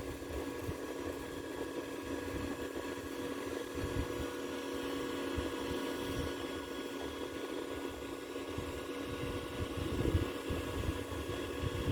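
Steady mechanical hum, like a motor or fan running, with several fixed tones over an uneven low rumble.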